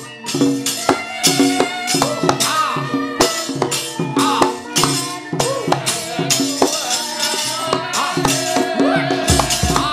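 Javanese gamelan playing fast battle music, with the puppeteer's metal kepyak plates clattering over it in quick, uneven strikes.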